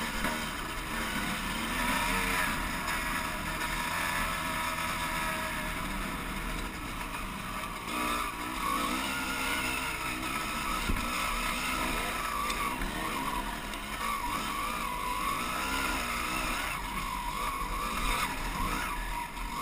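Dirt bike engine running steadily while riding a trail, its revs rising and falling.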